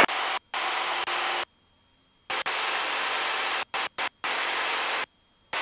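Steady hiss of an airplane's headset intercom feed with nobody talking, cutting out to dead silence and back about six times as its squelch gate closes and opens.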